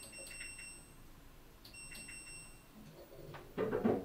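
Front-loading washing machine's control panel beeping as programme settings are selected: a high beep at the start and another about two seconds in. Near the end comes a brief, louder burst of clicks.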